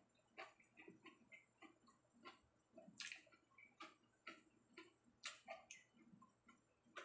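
Faint, irregular mouth clicks and smacks of someone chewing a mouthful of rice.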